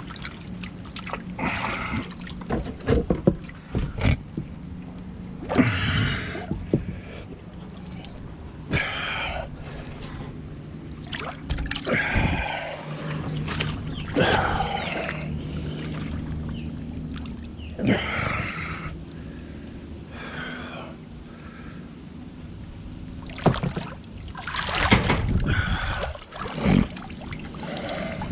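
Water sloshing and splashing irregularly as a person wades chest-deep and moves about, with a steady low hum underneath.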